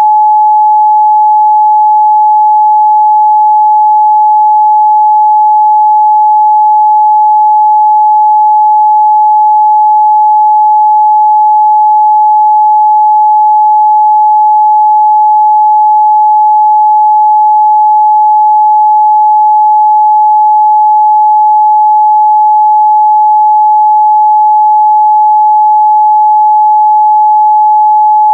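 A pure 852 Hz sine-wave test tone, held steady at one pitch and one loudness throughout.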